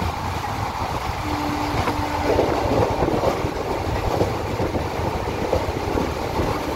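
Train running at speed, heard from inside the carriage: a steady low rumble with rushing air through the open window, and a short steady tone a little over a second in.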